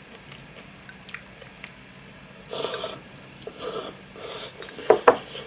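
Wooden chopsticks clicking a few times against a ceramic bowl, then several short wet bursts of slurping noodles and broth, the loudest near the end.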